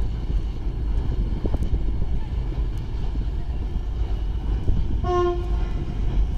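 Diesel locomotive's horn sounding one short blast of about half a second, about five seconds in, over the steady low rumble of a passenger train crossing a river bridge.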